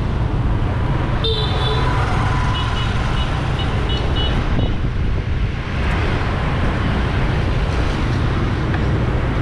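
Busy city street traffic heard from a moving vehicle: a steady low rumble of engines and road noise, with a vehicle horn honking about a second in, then a string of short high beeps until about the fifth second.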